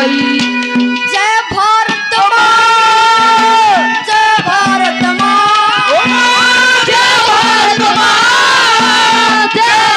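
Haryanvi ragni folk song performed live: a sustained, wavering sung melody over harmonium and hand-drum accompaniment with a steady beat.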